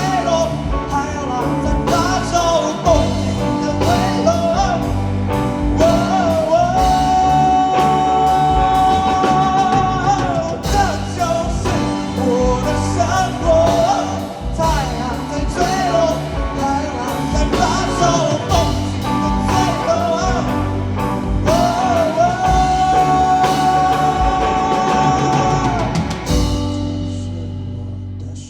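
A singer with a rock band: a sung melody with long held notes over drums and other instruments. The band drops out near the end, leaving a ringing chord.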